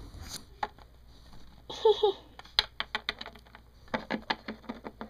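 Quick light clicks and taps of small plastic toy figures being moved about on a wooden tabletop, coming thick and fast in the second half.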